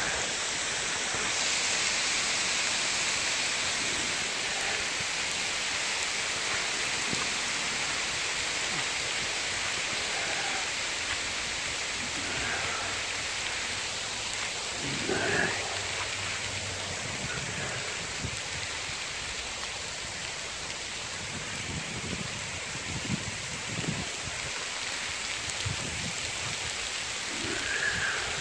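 Hail and sleet falling steadily on pavement, leaves and a car, a dense even hiss. In the second half, wind gusts buffet the microphone.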